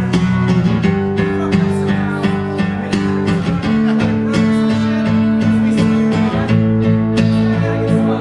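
Live acoustic guitar and electric guitar playing together: strummed chords over held low notes.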